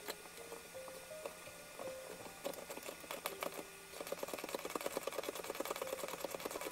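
Large threaded bolt turning in a carved wood piece as it is twisted by hand, a fast run of small creaking clicks that starts about halfway through. Faint soft music notes sound underneath.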